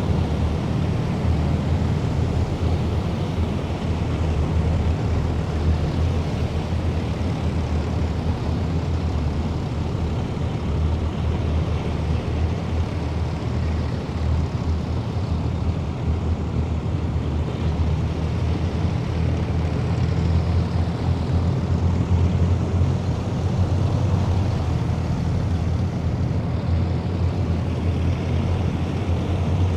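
Heavy military vehicles driving past in a column, their diesel engines giving a steady deep rumble with tyre and road noise, unbroken throughout.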